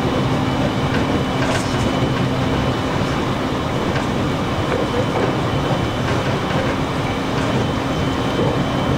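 Electric commuter train running, heard from inside the passenger car: a steady rumble of wheels on rail with a low hum and a few faint clicks.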